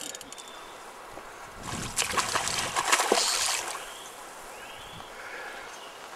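Trout splashing and thrashing at the water surface in a burst lasting about two seconds.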